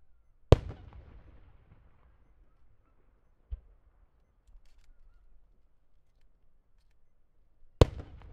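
Aerial firework shells bursting: two loud booms, one about half a second in and one near the end, each trailing off in a long echoing rumble. A softer thud comes about three and a half seconds in.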